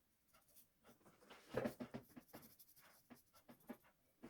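Faint scratching of a pencil drawing strokes on paper, with a slightly louder run of strokes about a second and a half in.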